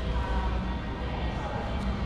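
Background music laid over the scene, with faint voices underneath.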